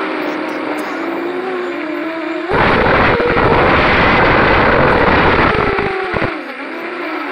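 FPV drone's motors and propellers whining, heard from the camera on board, the pitch wavering up and down with the throttle. About two and a half seconds in, a loud rush of motor and wind noise takes over for some three seconds, then the wavering whine comes back.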